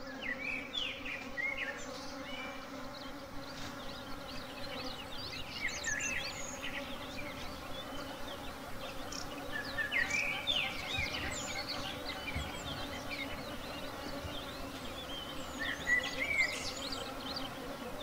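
Honeybees buzzing around an opened hive in a steady low hum, with bursts of short high chirps over it now and then, loudest about halfway through and again near the end.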